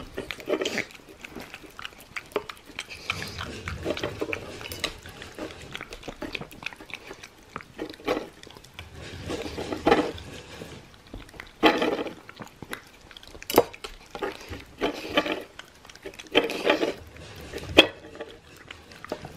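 Shiba Inu dog eating stew from a stainless steel bowl: wet licking and chewing in irregular bursts, with a few sharp clinks of the metal bowl in the second half.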